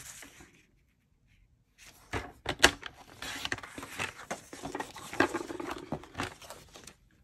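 Paper being handled on a paper trimmer: sheets of designer paper rustle and slide against the trimmer's base, with several sharp knocks, and the paper is cut. It starts about two seconds in, after a short silence.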